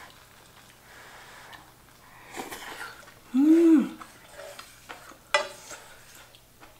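Chopsticks stirring through stew and knocking against an electric skillet, with a sharp clack about five seconds in. The loudest sound is a short hummed "mm" that rises then falls, about three and a half seconds in.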